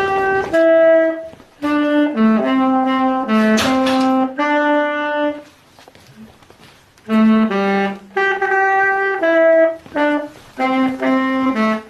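Saxophone played by a learner practising, in short phrases of held notes with a pause of about a second and a half just past the middle.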